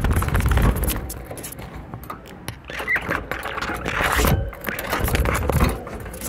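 Budgerigars moving about in a wire cage: fluttering wings close by, with rattling and scraping on the cage wire, and a couple of short chirps in the middle.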